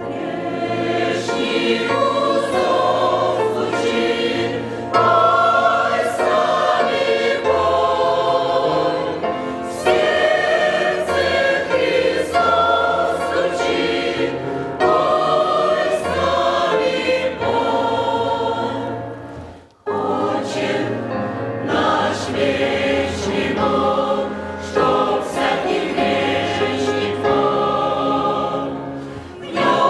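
Church choir singing a hymn in harmony, with held chords that change from phrase to phrase and a brief break about twenty seconds in.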